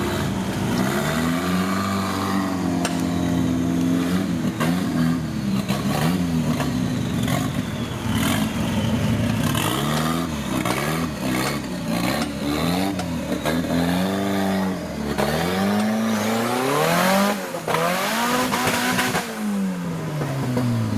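Off-road 4x4 engine revved up and down over and over, each rev lasting a second or two, with clattering knocks throughout.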